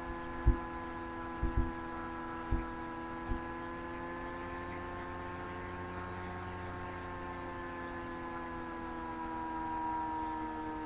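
Steady background hum made of several held tones that drift slightly in pitch, picked up by a computer microphone. Five short, low thumps come in the first few seconds.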